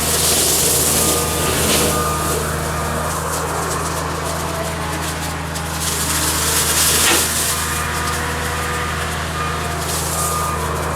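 Cat 279D skid steer's diesel engine running steadily under load while brush cutting, with a hissing rush that swells and fades three times.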